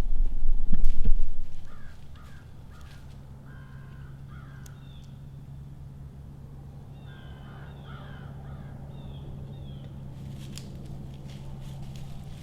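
Crows cawing in two bouts of short, repeated harsh caws. A loud low rumble fills the first two seconds.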